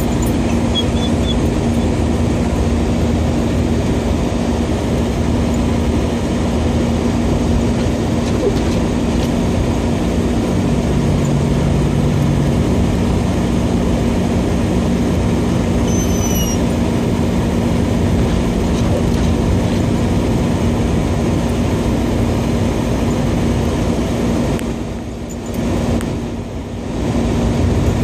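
Steady cabin noise of a car driving on a snow-covered road: a continuous drone of tyres and engine with a constant low hum. The noise dips briefly twice near the end.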